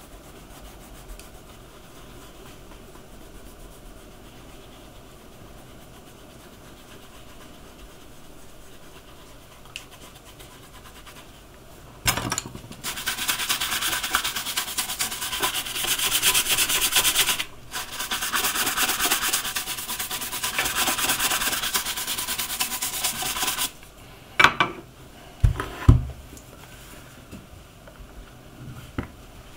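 Rapid rubbing on a shoe by hand, starting about twelve seconds in, with one short break, and lasting about eleven seconds. A few knocks follow near the end.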